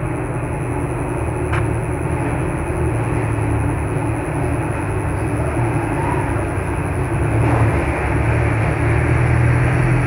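Steady low hum and rumble of background noise, with one sharp click about one and a half seconds in.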